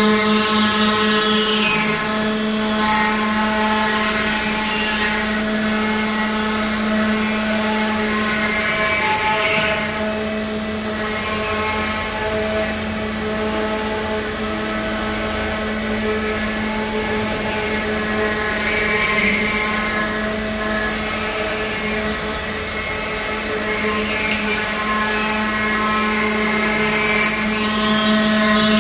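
Stone CNC router's spindle motors running with a steady pitched whine as the machine carves stone, with a rougher hiss above it that swells and fades every few seconds.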